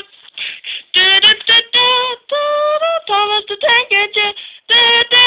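A high voice singing a wordless tune in short, separate notes, like a sung-along theme.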